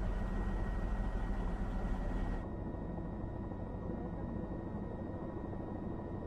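Steady rumble of a moving motor vehicle. About two and a half seconds in the higher hiss cuts off abruptly and the rumble goes on a little quieter.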